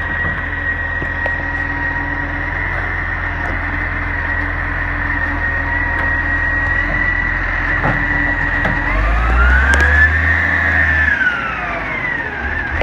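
Dennis Eagle side-loader garbage truck lifting and tipping a wheelie bin with its automated arm: the diesel engine runs under a steady high hydraulic whine. About nine seconds in, the engine revs up and the whine rises, then falls away.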